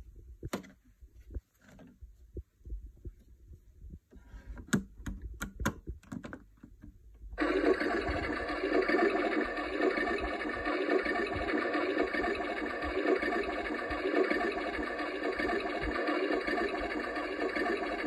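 A few light plastic clicks and knocks, then about seven seconds in a Keenway My Home toy washing machine starts its wash cycle. Its loud built-in speaker plays a steady electronic washing-machine sound over the hum of its small drum motor.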